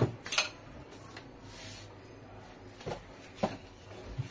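Small hard objects being handled: a few sharp clicks and clinks, two close together at the start, then a few softer knocks later on.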